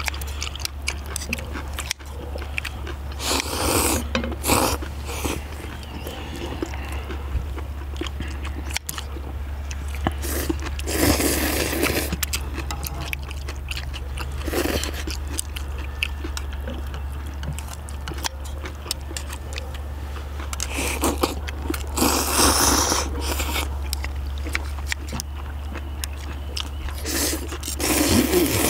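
People eating seafood ramen: several loud slurps of noodles, each about a second long, between chewing and the clinks and scrapes of metal scissors and tongs cutting octopus in a wide iron cauldron-lid pan.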